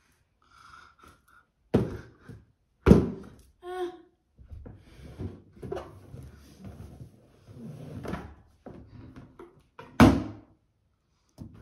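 Inflated rubber balloons struck by hand: a few sharp, hollow thumps, the loudest about three seconds in and another near the end, with rubbing and handling of the balloons between them.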